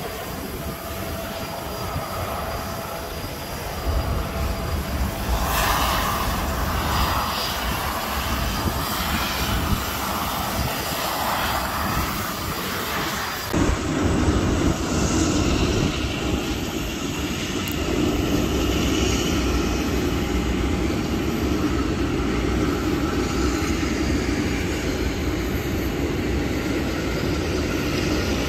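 Steady mechanical rumble and faint whine of airport ramp noise. About halfway through the sound changes abruptly: the high hiss drops away and a lower, louder rumble takes over.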